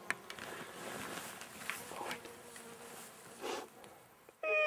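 Insects buzzing in the open air, with a faint steady hum and a few light clicks. Near the very end a loud call with a falling pitch starts abruptly.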